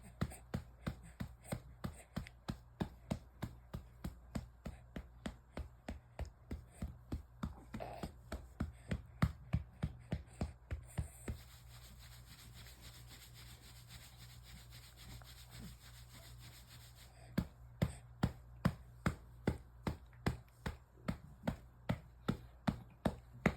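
A hand patting a baby's back to bring up a burp: steady soft pats about three a second, stopping for about six seconds midway and then starting again.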